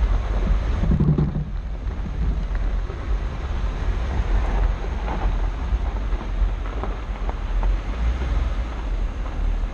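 Jeep Wrangler driving on a dirt trail: a steady low rumble of engine and tyres on gravel, with wind buffeting the microphone. There is a brief louder low hum about a second in and a few light ticks partway through.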